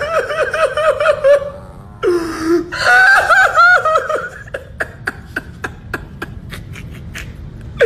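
A person's high, wavering wails in quick pulses, like exaggerated sobbing, in two bouts. These are followed by a run of light, quick clicks about four a second.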